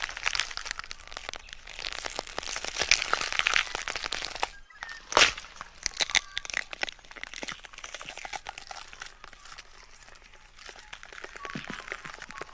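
Feeding sound effect of a predator tearing at a carcass: dense wet crunching and crackling, with one louder crack about five seconds in, thinning out toward the end.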